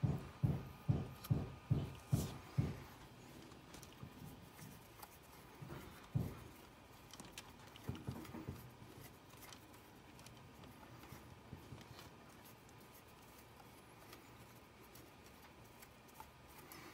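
Hand-tool work on an RC truck's brass C-hub: a hex driver turning a screw, heard as a run of soft low knocks about three a second for the first few seconds. After that come a few single knocks and faint clicks of handling.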